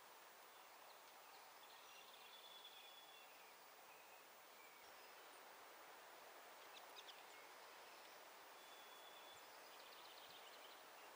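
Faint songbird calls over a steady background hiss: a high buzzy trill about two seconds in, a few short chips near the middle, and another high trill near the end.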